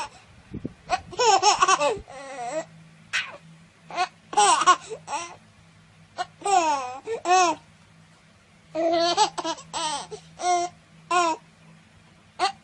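A baby laughing in a string of high-pitched bursts and squeals, coming in bouts with short pauses between them.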